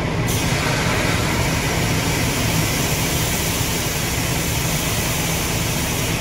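Fire engine pump's air primer hissing steadily, coming on suddenly a moment in, over the low rumble of the engine running the pump through the power takeoff. The air primer is drawing the air out of the pump so tank water can fill it.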